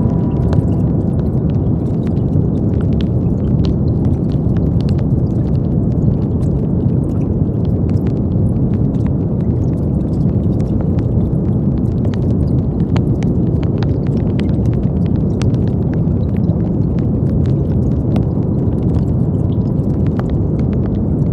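Steady brown noise: a deep, even hiss weighted toward the low end, unchanging throughout, with faint scattered crackles in the treble.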